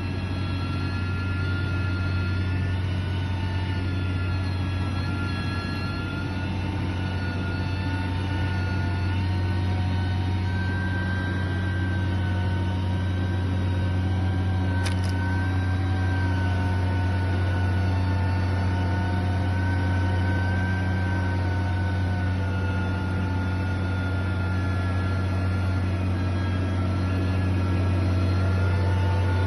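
Engine of a heavy construction machine running steadily: a deep, constant hum with a higher whine that drifts slightly up and down in pitch.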